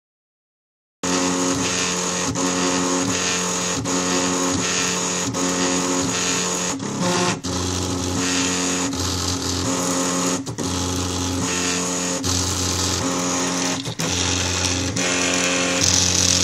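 A home-built 3D printer's stepper motors whining as it moves, starting about a second in. The tones shift pitch in steps every half second or so as the moves change, with a few short clicks.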